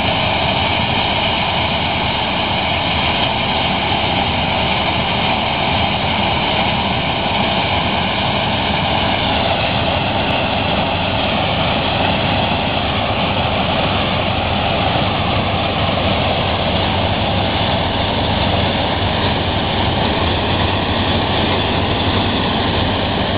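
Combine harvester running steadily under load while harvesting maize through its corn header, engine and threshing machinery making one continuous, even noise.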